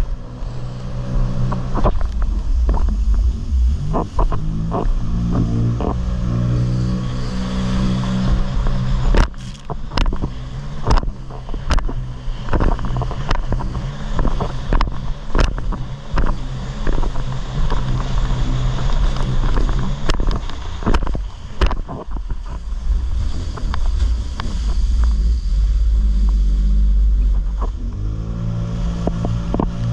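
Jet ski engine running at speed, its pitch shifting now and then. Repeated sharp knocks and splashes come as the hull slaps over the waves, thickest in the middle of the stretch.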